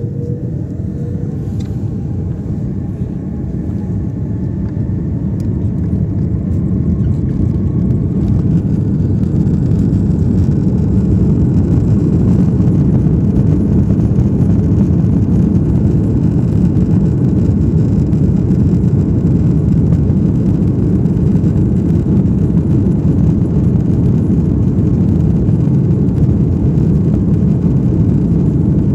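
Airliner's jet engines heard from inside the cabin, spooling up to takeoff power: a rising whine and growing loudness over the first several seconds, then a loud, steady rumble.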